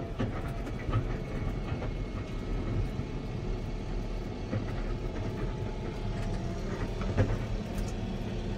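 Steady engine drone and cab noise inside a Fendt tractor's cab as it drives along a rough, snow-covered road.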